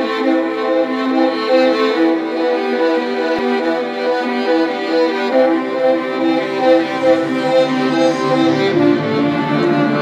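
Background music: a violin melody of quick, connected notes, with lower strings filling in about two-thirds of the way through.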